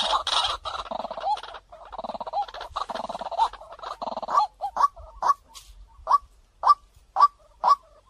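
White-breasted waterhen calling. It starts as a dense, harsh run of calls, then from about four seconds in it settles into short, sharp notes repeated evenly about twice a second.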